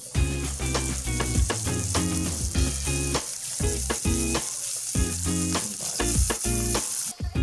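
Butter sizzling as it melts in an electric pan while it is stirred, a steady hiss that cuts off suddenly near the end. Background music with a steady beat plays over it.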